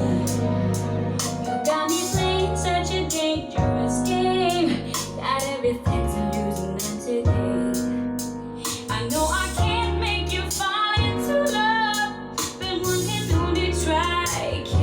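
A pop ballad with a woman singing over keyboards and a deep bass line, played from YouTube through a Marantz MR 750 amplifier and Klipsch R-800F floor-standing speakers.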